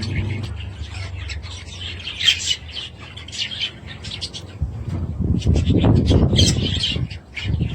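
Budgerigars chirping and chattering in many quick, short calls. From about five seconds in, a low rumbling noise runs under the calls for a couple of seconds.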